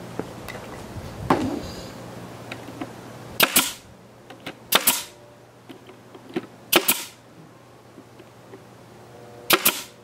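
Pneumatic brad nailer firing brads into plywood, four sharp shots spread over several seconds.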